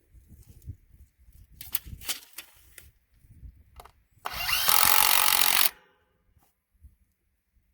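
A power drill runs in one steady burst of about a second and a half, then stops abruptly. It follows a few sharp knocks on wood.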